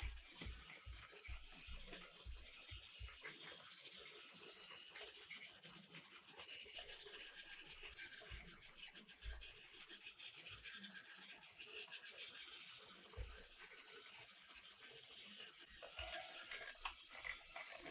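Faint steady whirring and rubbing of a battery-powered toy train running on plastic track, with a light regular ticking and soft low thumps here and there.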